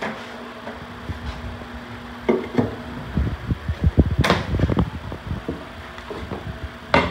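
Light knocks and taps of luxury vinyl planks being handled and fitted against the floor, coming thick and fast from about two seconds in, with one sharp click about four seconds in. A steady low hum stops as the knocking begins.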